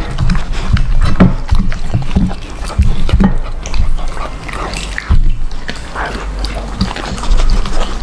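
A pet chewing chicken gizzards: irregular wet crunches and smacks, several a second, with short pauses.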